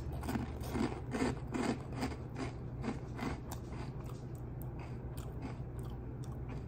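Crunchy dry chocolate O-shaped cereal being chewed, a steady run of crisp crunches about two to three a second that fade out after about four seconds.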